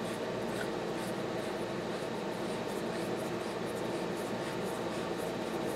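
Faint scratchy rubbing and light ticking as a threaded spindle nose protector is turned by hand onto a lathe spindle's nose threads, over steady background noise.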